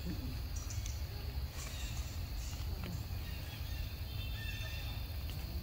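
Outdoor ambience: a steady low rumble with scattered light ticks and rustles, and a few faint high chirps about four to five seconds in. No clear monkey call stands out.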